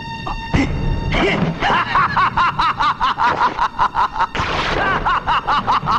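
Loud, rapid laughter, a long run of 'ha' syllables starting about a second in, over film music, with a sharp hit just after the start.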